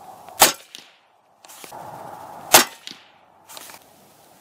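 Two suppressed shots from a 300 Blackout rifle firing subsonic 220-grain rounds, about two seconds apart, each a short sharp report.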